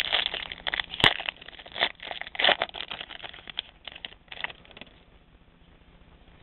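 Foil trading-card pack wrapper crinkling and tearing as it is ripped open and the cards are slid out: a run of crackles with one sharp snap about a second in, dying down after about four and a half seconds.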